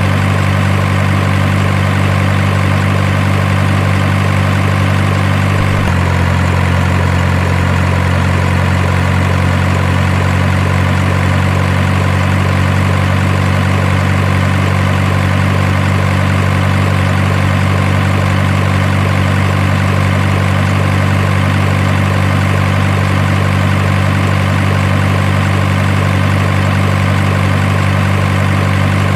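Steady heavy truck engine idling sound, a low drone that shifts slightly in tone about six seconds in.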